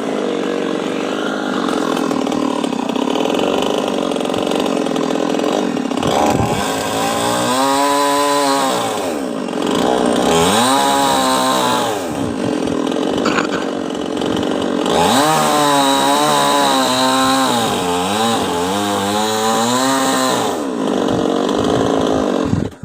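Chainsaw running hard and cutting into a coconut tree trunk. Twice, for several seconds at a time, its pitch sags and climbs back under the load of the cut. It cuts off suddenly at the end.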